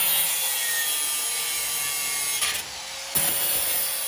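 Handheld electric angle grinder running with its abrasive disc grinding against a steel angle-iron frame: a steady hissing screech over the motor's whine. Near the end it eases off for about half a second, then bites into the metal again.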